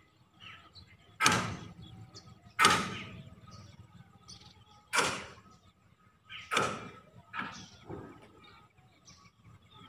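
Sharp metallic strikes on railway track fittings, about six of them, unevenly spaced a second or more apart, each ringing briefly: a trackman's hammer on the rails.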